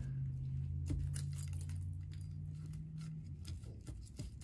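Faint taps and clicks of a bundle of paint-covered drinking straws being dabbed and pressed onto paper, over a steady low hum that fades out about three seconds in.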